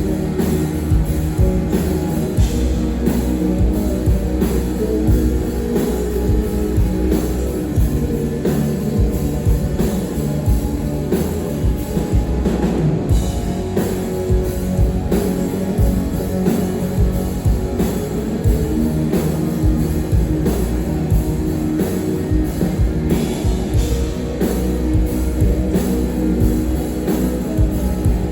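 Live rock band playing loud and continuously: drum kit keeping a steady beat under guitars.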